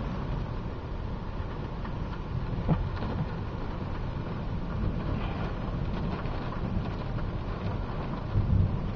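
Severe thunderstorm heard from inside a parked car: a steady low rumble with rain and wind noise. There is a sharp tick about three seconds in and a louder low rumble near the end.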